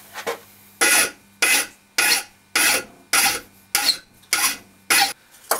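Hand file rasping on a copper plumbing fitting, in about nine even strokes a bit under two a second, taking roughly 3 mm off its collar.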